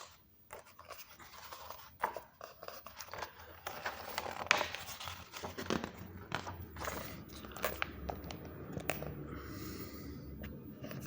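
Paper rustling and handling noise as the pages of a book are turned and handled, with irregular crackles and clicks.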